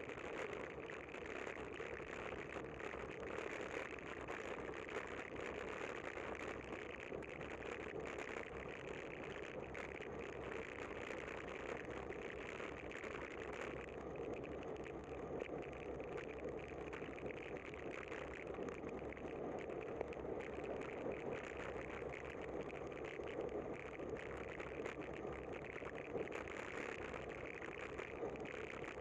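Steady street noise from a camera on a bicycle riding in traffic on a wet road: car and tyre noise with a constant fine crackling rattle.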